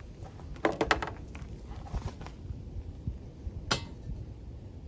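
Metal cookware being handled: a short clatter with a brief metallic ring about a second in, as the steel spatula is set down, and a single sharp knock near the end as the cast iron skillet is set on the small metal wood stove.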